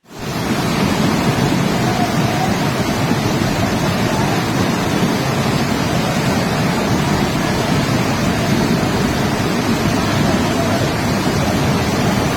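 Loud, steady roar of rushing floodwater.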